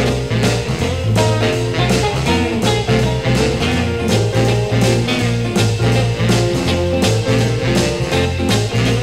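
Blues band music with no singing: bass, electric guitar and drums playing a swinging groove.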